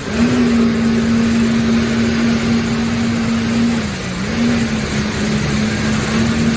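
Jet ski engine running at a steady pitch over a rushing noise, easing off briefly about four seconds in and then picking back up.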